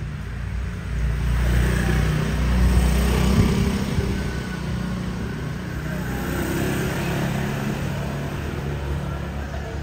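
Motor scooters riding past close by on a narrow street, their small engines humming; the sound swells about a second in, is loudest around three seconds in, then settles to a steadier drone.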